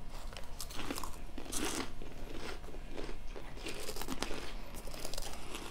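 Two people biting into and chewing giant cheddar cheese puffs, a run of irregular crunches.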